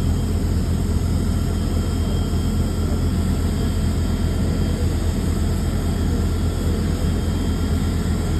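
Steady airport-ramp drone around a parked Boeing 777 airliner: an even low rumble with faint, constant high whining tones above it, unchanging throughout.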